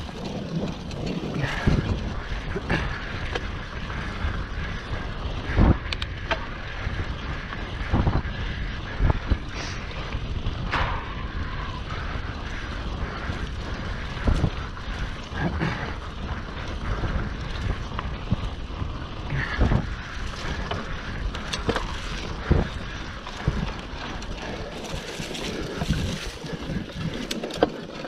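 Mountain bike being ridden over rough ground: wind rushing over the action camera's microphone, with frequent irregular knocks and rattles from the bike.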